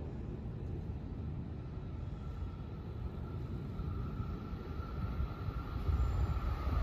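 An electric train approaching from down the line, heard as a low rumble that grows louder over the last two seconds, with a faint thin whine coming in about two seconds in.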